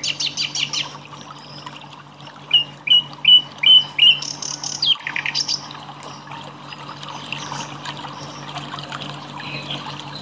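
Songbirds chirping and calling in quick repeated phrases, loudest in the first half, over trickling water and a steady low hum.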